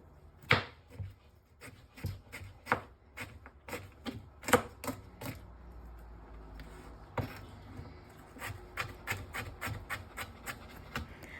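Kitchen knife chopping garlic and ginger on a cutting board: irregular sharp taps, two or three a second, pausing briefly a little past the middle.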